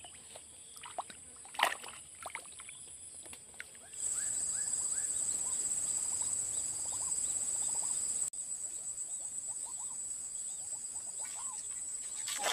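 Steady high-pitched drone of insects, much louder from about four seconds in, with faint small chirps underneath. A few light knocks come in the first two seconds.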